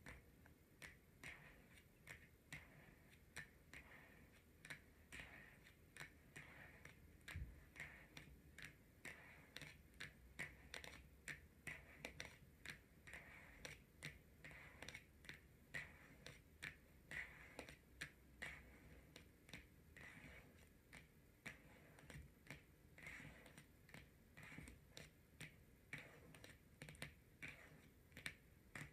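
Long natural fingernails tapping and clicking on tarot cards: a faint, continuous run of sharp little taps, a few each second.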